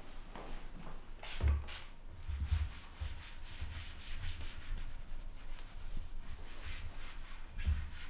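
Repeated soft rubbing and rustling strokes, with a few dull low bumps, the clearest about one and a half seconds in and again near the end.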